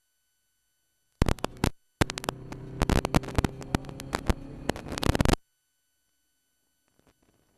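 Ginetta G40 race car running at a steady speed, heard through an in-car microphone that cuts in and out: a short burst, then about three seconds of crackling, distorted noise over a steady low drone, which stops abruptly.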